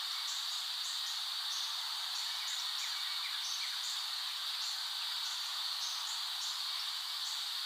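A chorus of insects with a steady, high-pitched buzz, and short higher chirps dotted irregularly over it.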